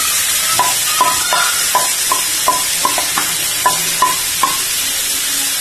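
Marinated chicken sizzling as it hits hot oil in a nonstick pan, a steady frying hiss. Over it comes a run of about eleven sharp taps, a little over two a second, from the plastic spatula knocking against the bowl and pan as the chicken is scraped in. The tapping stops a second before the end.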